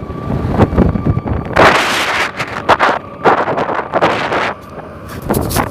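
Strong winter wind buffeting the microphone in loud, rough gusts. The biggest gusts come about a quarter of the way in and again past the middle.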